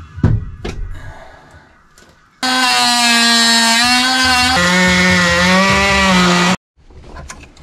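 A hand-held power tool buzzing loudly as it cuts away fiberglass engine bunks in a boat's hull. It starts abruptly about two and a half seconds in, its pitch steps down about halfway through, and it stops abruptly after about four seconds. A few sharp knocks come before it in the first second.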